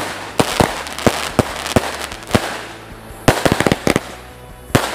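A 49-shot firework cake firing: an irregular series of sharp launch pops and bangs, bunching into quick volleys in the second half and again near the end, with a hissing, crackling rush between the shots.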